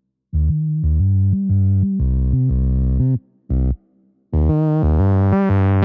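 Outro music: a synthesizer riff of short, stepped notes with two brief breaks, building up near the end.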